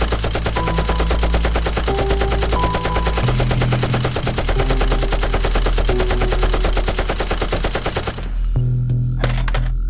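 Rapid automatic gunfire sound effect, a long continuous stream of shots that stops about eight seconds in.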